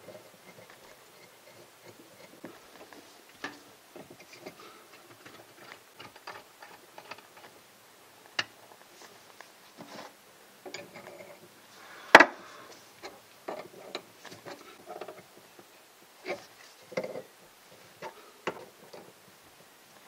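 Irregular small clicks and knocks of an adjustable wrench and pipe fittings as water supply lines are reconnected to shutoff valves, with one sharp knock about twelve seconds in.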